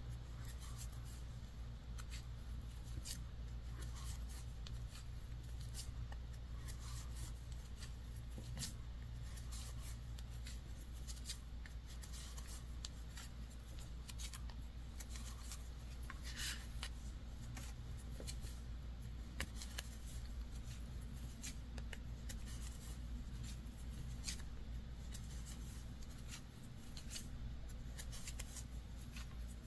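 Faint, irregular light clicks and rubbing of wooden knitting needles working wool-blend yarn, stitch after stitch, as the last row is bound off, over a steady low hum.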